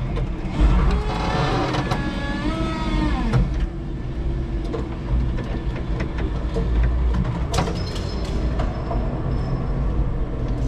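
Electric forklift driving and manoeuvring: a steady low rumble, with the electric motor's whine gliding up and down in pitch between about one and three and a half seconds in, and a few sharp knocks, the loudest a little past halfway.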